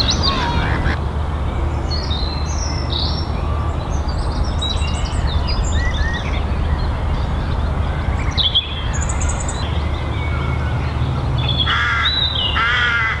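Outdoor birdsong: several small birds chirping and trilling on and off, with two louder calls near the end, over a steady low rumble.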